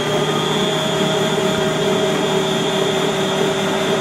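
Electric food processor running steadily at full speed, a constant whine over a rushing noise, as it shreds potatoes.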